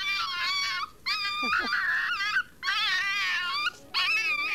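A puppy crying in pain in four long, high, wavering whines one after another, from a tortoise's bite on its tongue.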